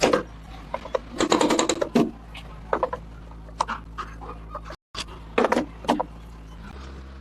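Metal tools and parts clicking and clanking during workshop work, with a quick run of rapid clicks about a second in and a few separate knocks later, over a steady low hum.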